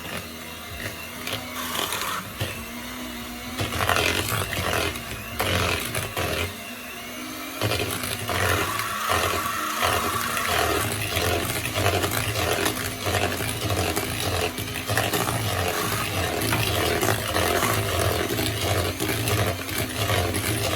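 Electric mixer running in a bowl of cookie batter, beating eggs and vanilla into creamed butter and sugar. The motor comes up about four seconds in, drops out briefly, then runs steadily with an even pulsing as the beaters work through the batter.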